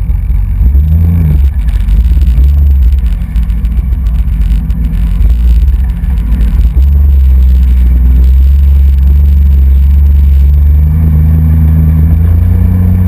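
Jet ski running on open water, heard from a camera riding low on the moving craft: a loud, deep, muffled rumble of engine and rushing water, with a faint hum surfacing near the end.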